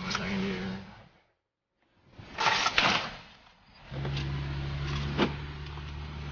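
Land Rover LR2 jolting along a sandy off-road trail, heard from inside the cabin: rattles and rustling, a brief total dropout, then a loud rustling burst around two and a half seconds in. From about four seconds in a steady low engine and drivetrain drone sets in, with a couple of sharp knocks.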